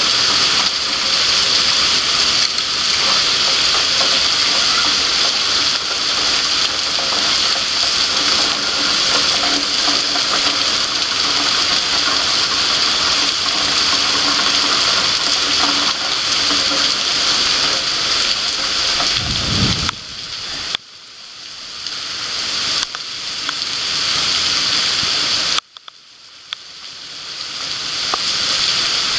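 Heavy rain pouring down, a dense, steady hiss. Twice in the last third the sound drops away suddenly and then swells back over a few seconds.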